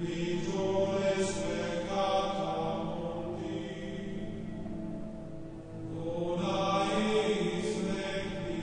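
Slow, meditative background music: a sustained drone with chant-like swells, which build near the start and again about six seconds in.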